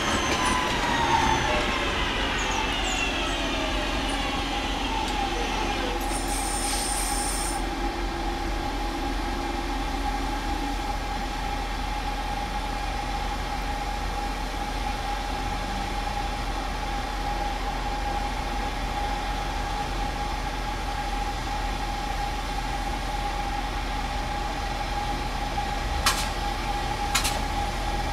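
Two British Rail Class 37 diesel locomotives with English Electric engines running light towards the listener: a steady engine rumble with a constant high tone held over it. Falling pitch glides fade away in the first few seconds, and a few sharp clicks come near the end.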